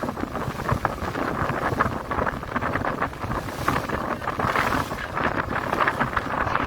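Wind buffeting the microphone over the steady rushing noise of a boat under way on open water.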